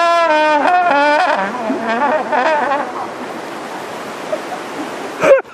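A brass-like instrument holds one loud note, then plays a few shorter, wavering notes that die away about three seconds in. Near the end a sudden loud burst of sound starts.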